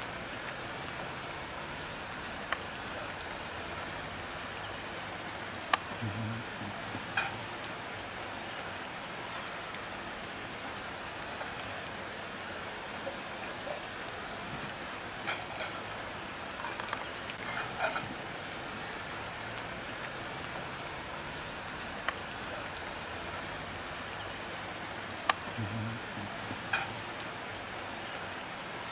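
Steady hiss of heavy rain falling, with a few sharp taps and short clusters of knocks scattered through it.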